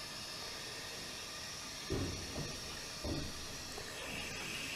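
Water running steadily from an opened tap, heard as a steady hiss that takes on a lower tone about four seconds in. Two dull knocks come about two and three seconds in.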